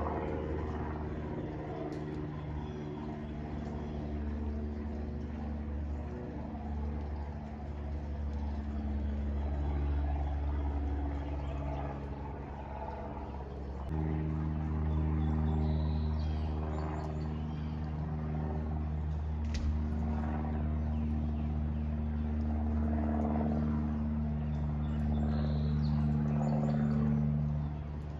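A steady low engine drone with several pitched layers, changing abruptly about halfway through, with a few birds chirping over it.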